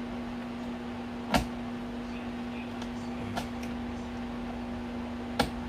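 Sharp clicks and knocks of plastic parts being handled and fitted on a copier drum unit, three louder ones about two seconds apart, over a steady low hum.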